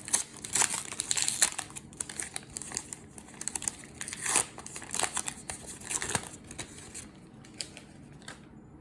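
Trading-card pack wrapper crinkling and tearing as a pack is opened, in quick irregular bursts that die down after about six seconds.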